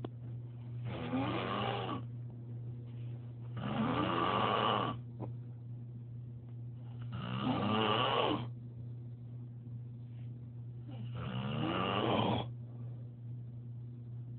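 A man snoring badly in his sleep: four long snores, one about every three and a half seconds.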